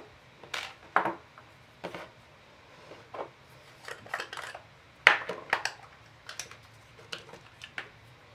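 Irregular sharp clicks and light clinks as a small round metal tin and florist wire are handled on a tabletop, loudest about a second in and again about five seconds in.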